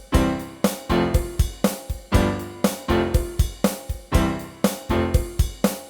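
Background music: keyboard chords over a steady drum beat, about two beats a second.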